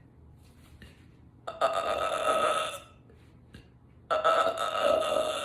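A woman belching twice: two long, loud burps, each over a second long, with a short pause between them.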